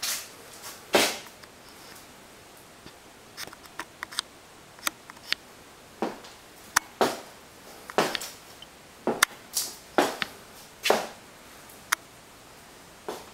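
Footsteps on a hard floor: sharp, irregular taps, a few at first, then about one or two a second from about six seconds in, with fainter clicks in between.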